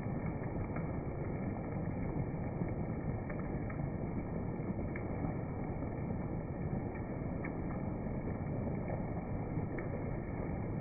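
Heavy rain pouring, a steady dull hiss with faint scattered drop ticks.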